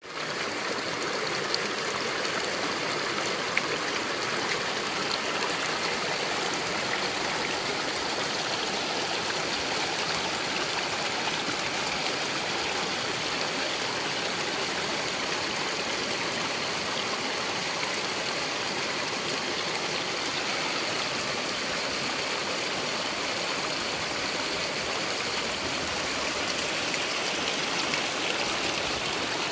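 Shallow, rocky mountain stream running and splashing over stones, a steady rushing of water.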